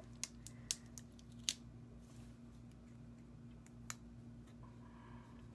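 A handful of short, sharp clicks and taps from fingers and nails handling small paper embellishments and pressing them onto a scrapbook layout, clustered in the first second and a half with one more near four seconds.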